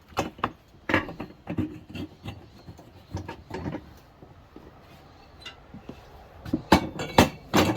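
Irregular knocks, clanks and rubbing from a tire and tools being handled on a manual tire changer, with a cluster of louder knocks near the end.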